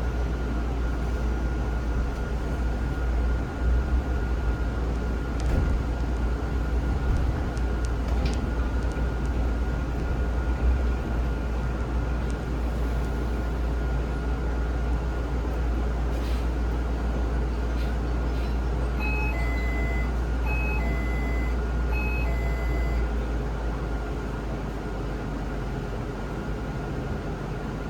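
Zhongtong hybrid range-extender bus running, heard from inside, a steady low rumble with a thin whine above it. Around two-thirds of the way through an electronic chime beeps three times, and near the end the low rumble eases off.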